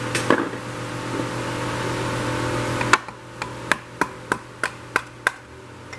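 Workshop hiss with a faint hum that cuts off sharply about halfway. It is followed by a quick run of sharp clicks and taps, about eight in two and a half seconds, as a marine Mercarb carburetor body and its loose parts are handled in a parts tray.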